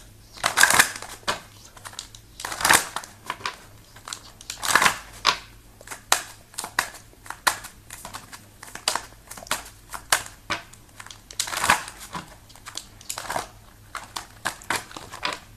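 Tarot cards being shuffled by hand: many crisp card clicks, with longer rustling bursts every couple of seconds.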